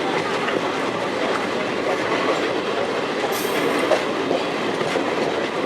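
Train running along the track, heard from on board: a steady rumble of wheels on rails with faint clicks, and a short high hiss a little over halfway through.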